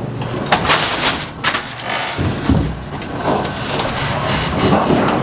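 Bowling pinsetter machinery running: a steady motor hum with several sharp metallic clanks in the first second and a half, then a low rumble.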